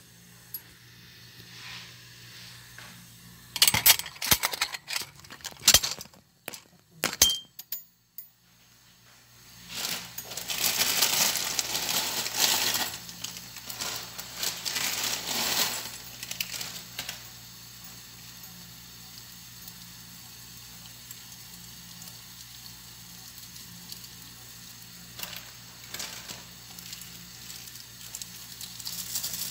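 Scattered clinks and knocks from handling things at the stove, then plastic instant-noodle packets crinkling loudly for several seconds as they are torn open and the noodles emptied into a pot. A steady low hum follows.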